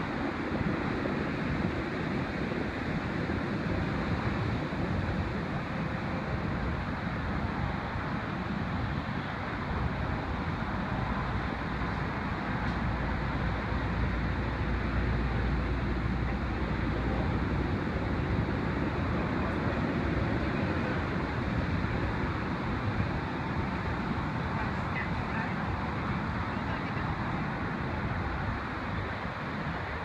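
Heavy storm surf breaking and churning into whitewater, a steady rush of waves with a deeper rumble swelling about halfway through.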